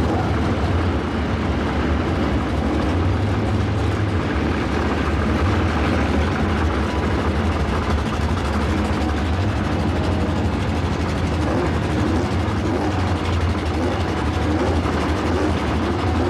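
Two drag cars' engines, one in a Volkswagen Karmann Ghia, idling loudly at the start line with a steady low rumble while staged for launch.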